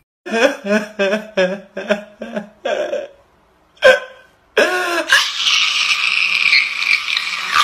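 A person's voice in a quick run of short, pitched cries, about three a second, then a pause and a few more. In the last seconds comes a steady rustling of a bag and crumpled paper being rummaged through.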